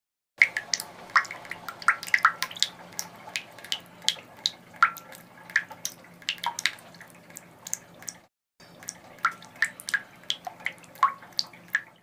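Water dripping from a tap: quick, irregular drops plinking several times a second, with a short break about two-thirds through.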